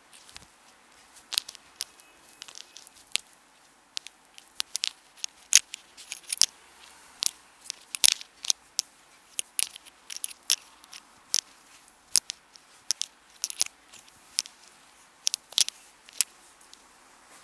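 Hands working over the hair and scalp in a head massage, giving irregular sharp crackles and taps, several each second.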